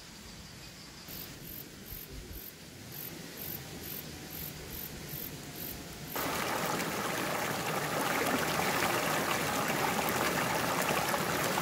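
Small valley stream running, a steady rush of water that jumps abruptly louder about six seconds in.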